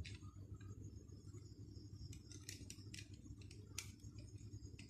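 Faint, scattered clicks of a screwdriver and plastic socket parts being handled as the live wire is fastened into a wall socket's terminal, over a low steady hum.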